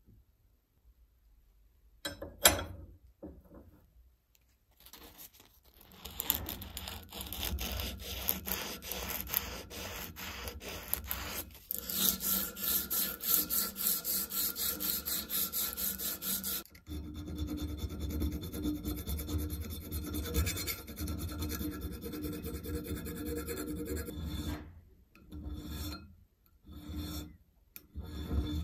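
Abrasive paper rubbed back and forth over a bare duralumin pencil-sharpener housing clamped in a vise, in quick continuous strokes, levelling the metal after the old paint has been stripped. A sharp knock comes about two seconds in, and near the end there are a few separate strokes of a small file on the same part.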